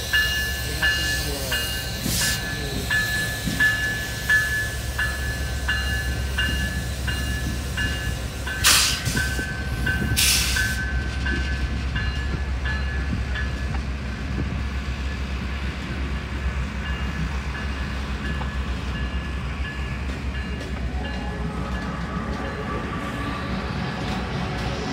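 Freight train rolling past: a Canadian Pacific diesel locomotive working mid-train goes by with a steady low engine rumble, followed by freight cars and tank cars running on the rails. A ringing tone repeats about twice a second through the first half, and two sharp clanks come about a second and a half apart, some nine seconds in.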